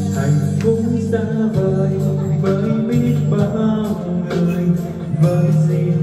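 A man singing into a microphone over a backing track with guitar, amplified through a small PA speaker.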